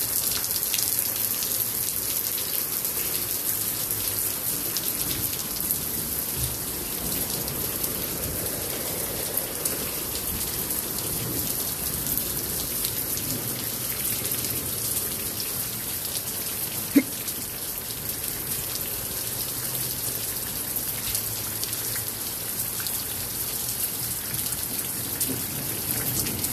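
Steady rain falling on a wet street and yard: a constant hiss with many fine drop ticks, and one sharp click about two-thirds of the way through.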